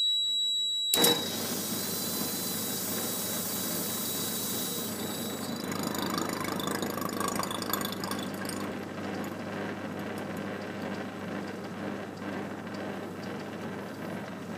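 An electric vacuum pump switches on with a click about a second in and runs steadily with a low hum. Under it, the high steady tone of an electronic buzzer sealed in a container fades over the next several seconds and is only faint from about halfway, as the air that carries its sound is pumped out.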